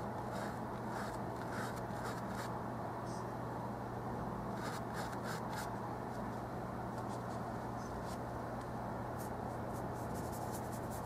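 Oil-paint brush scratching across textured canvas in short strokes that come in clusters, over a steady low hum and hiss.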